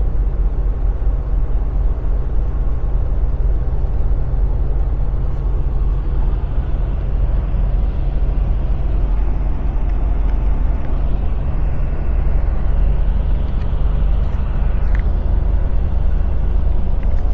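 Semi truck cruising on the highway, heard from inside the cab: a steady low drone of the diesel engine and tyre noise.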